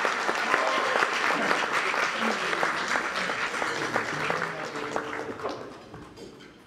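Audience applauding, fading out over the last two seconds.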